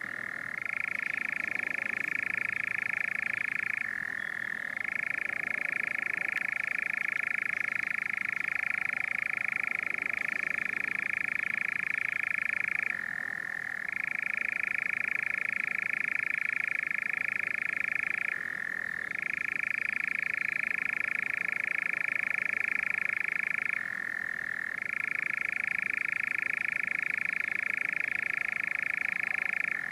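European nightjar churring: one continuous trill that runs without a break, dropping briefly to a lower pitch about four times, every few seconds.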